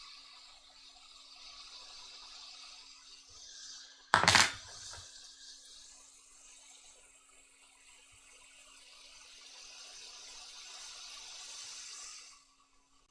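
Hot air rework station blowing a steady hiss that swells and fades while a tiny resistor is freed from a board, stopping shortly before the end. A single loud knock cuts in about four seconds in.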